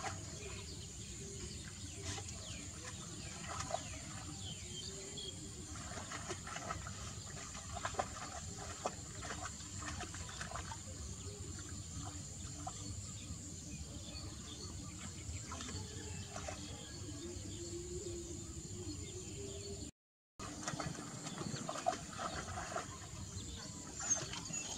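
Outdoor marsh ambience: a steady low rumble with scattered soft rustles and clicks and a few faint high chirps. About twenty seconds in, the sound cuts out completely for half a second.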